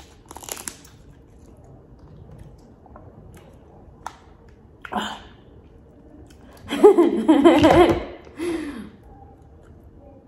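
Eating a crab leg: a few short sharp bites and shell sounds among quiet chewing. About seven seconds in, a loud wordless vocal sound with a wavering pitch, lasting about a second and a half.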